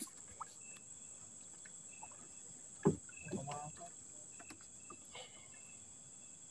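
Steady high-pitched chirring of night insects such as crickets, with a sharp knock about three seconds in and a few faint clicks.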